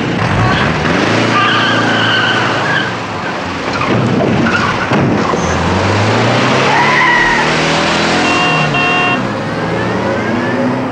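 Cars pulling away and driving off: engines revving up and down, with tyres squealing.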